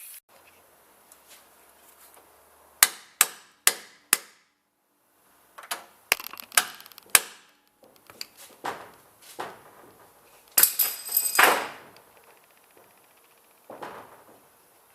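Sharp metal taps and knocks as a homemade steel locking clip is pushed and tapped into place on a Ford Focus's loose exhaust heat shield. There are four quick knocks a few seconds in and more scattered ones after, and about eleven seconds in a longer, ringing metallic scrape.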